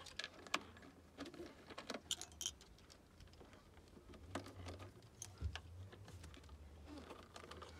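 Screwdriver working screws on a boat engine's plastic PCM computer housing and its metal bracket: faint, scattered small clicks and taps, with a faint low rumble from about four seconds in.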